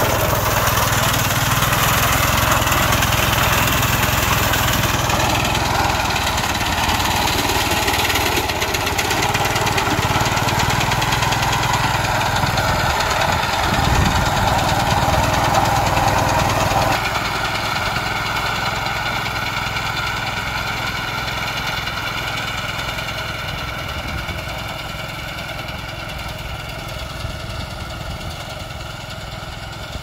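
Engine of a home-rebuilt rice harvester running steadily. About halfway through the sound drops in loudness, then slowly fades.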